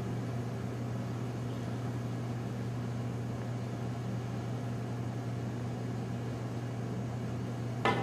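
Steady low electrical hum, then near the end a sharp click as the pool cue tip strikes the cue ball.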